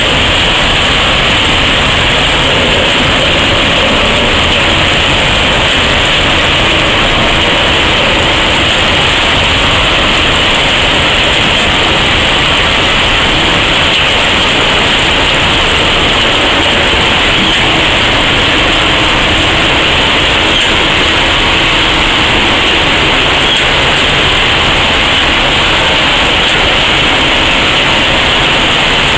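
A tamping machine and a Plasser & Theurer SSP 2005 ballast plough working side by side: diesel engines running under a dense, steady clatter and hiss of ballast being pushed and shifted, loud and unbroken.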